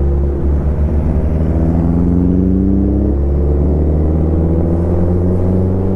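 Motorcycle engine running steadily while under way, its pitch rising gently about two seconds in.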